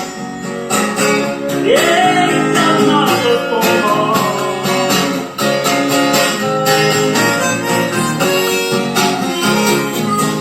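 Taylor GS Mini acoustic guitar strummed in a steady rhythm, with a voice singing over it that slides upward about two seconds in.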